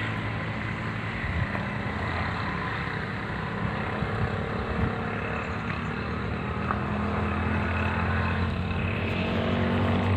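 An engine running steadily at an even speed, a continuous low drone that grows a little louder toward the end.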